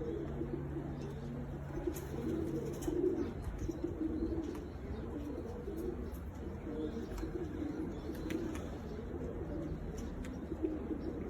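Domestic pigeons cooing, a steady run of overlapping coos from several birds.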